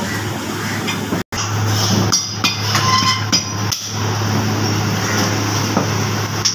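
Heavy meat cleaver chopping mutton on a round wooden butcher's block: a run of sharp chops a couple of seconds in, with a few more later, over a steady low hum.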